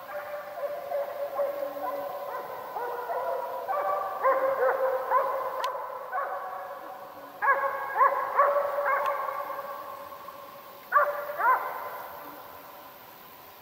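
Russian hounds in full cry on a hare's trail: drawn-out baying calls from several voices, overlapping, coming in clusters and fading near the end.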